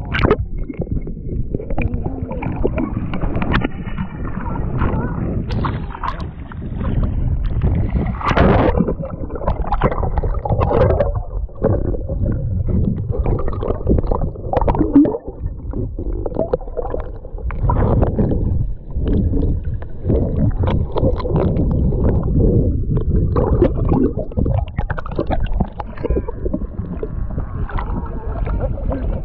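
Lake water sloshing, splashing and gurgling against a camera held at the surface while swimming, as it bobs in and out of the water. A continuous churn with irregular louder surges and brief dips.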